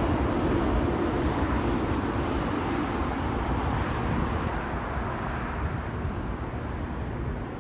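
Jet airliner engine noise, a steady rumble and rush that slowly fades and grows duller as the aircraft moves away.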